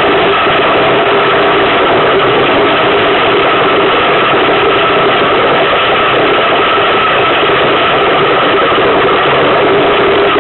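Iceboat runners rumbling steadily over the ice as the boat sails, a loud unbroken noise with a steady hum running through it.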